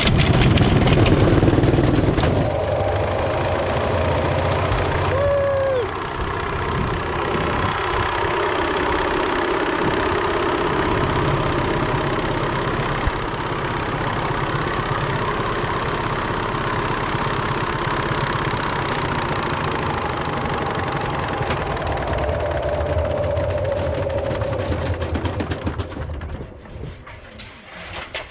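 Washing machine running loaded with bricks and loose nuts and bolts, its counterweight block removed: a loud, continuous mechanical din that starts abruptly and dies down near the end.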